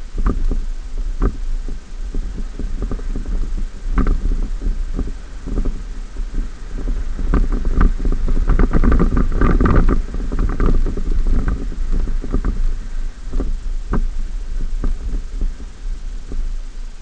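2014 Ford F-150 pickup driving over uneven beach sand, heard from a camera mounted outside on the hood: a heavy low rumble of wind and running gear with frequent knocks and rattles as the truck bumps over the ground, busiest and loudest about halfway through.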